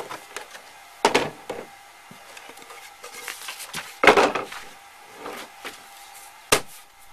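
A wooden board being handled and set down on a cooler lid, giving several knocks and clatters, the loudest about four seconds in and a sharp one near the end, with some rustling as a sheet of paper is laid on it.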